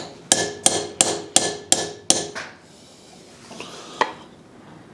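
Hammer driving a small cold chisel into a forge-welded seam to split it apart: about seven sharp, ringing metal-on-metal strikes, roughly three a second, followed a little later by one softer knock.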